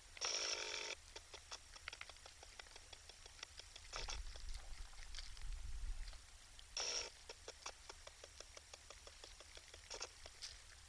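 Deer chewing and crunching feed close to the microphone: a stream of small, irregular clicks and crunches. A brief pitched, tone-like sound cuts in near the start and again about seven seconds in.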